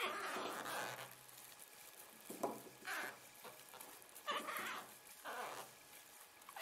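Dry sphagnum moss rustling as a moss-covered soil ball is turned in the hands and wound round with thread, in uneven bursts every second or so.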